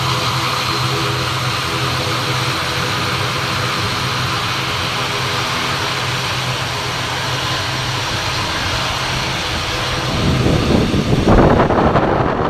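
ATR 72 twin-turboprop airliner taxiing, its engines and propellers giving a steady drone with several steady tones. About ten seconds in, as the tail swings toward the microphone, a louder, rougher rumbling buffets the microphone.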